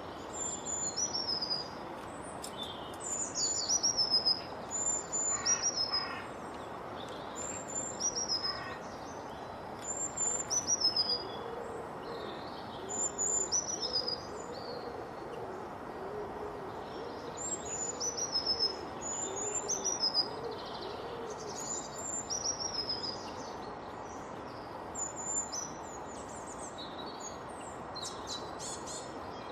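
Wild birds singing: high, clear whistled notes that drop in pitch, repeated in short phrases every second or two, with a low soft hooting series in the middle, over a steady background hiss.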